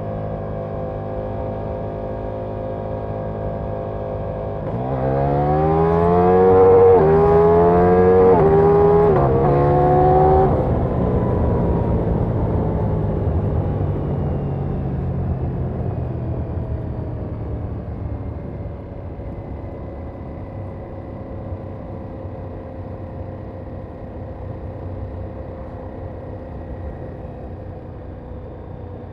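Ducati Diavel V4's 1158 cc V4 engine heard from the rider's seat: a steady note while cruising, then about five seconds in it is opened up hard, the pitch climbing and dropping back through three quick upshifts. After that the throttle closes and the engine note sinks slowly and gets quieter.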